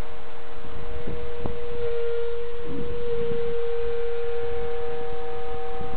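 Radio-controlled model autogyro's motor and propeller running steadily in flight, one steady hum that grows a little louder about two seconds in, over wind rumble on the microphone.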